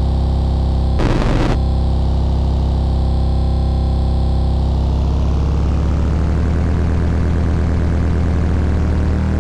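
Electronic synthesizer drone: several low tones held steadily together, with the upper overtones slowly sweeping and a brief burst of noise about a second in.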